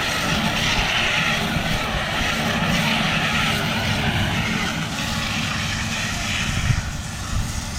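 Claas Arion 650 tractor engine running steadily while working in a hayfield.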